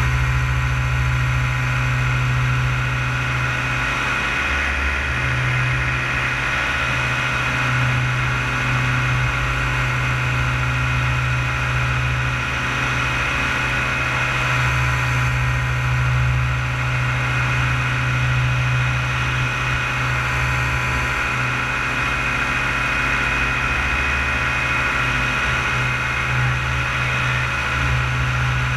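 Paramotor engine and propeller running steadily in level flight, a constant drone that holds the same pitch.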